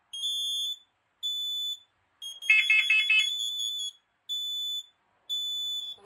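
Home smoke/carbon monoxide alarms sounding in test: a high, piercing beep of about half a second repeats roughly once a second. About two seconds in, a second alarm's faster, lower beeps overlap it for about a second and are the loudest part.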